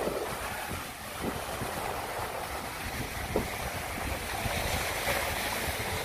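Wind buffeting the microphone in low, gusty rumbles over the steady wash of small waves on the beach.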